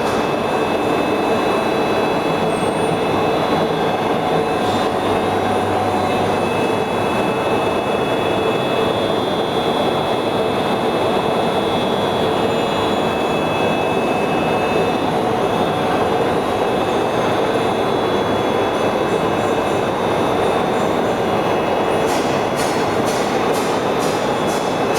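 Metal-spinning lathe running steadily, a dense mechanical noise with a steady hum and a high whine. A run of rapid sharp ticks comes near the end.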